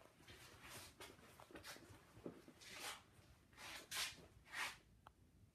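Faint scuffs and rustles, several short ones, the loudest around four and four and a half seconds in: footsteps scuffing on a gritty concrete floor as someone walks while filming.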